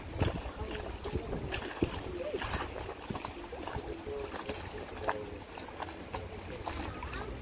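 Wind on the microphone and water slapping against a small boat's hull on choppy water, with a steady low rumble and scattered short splashes.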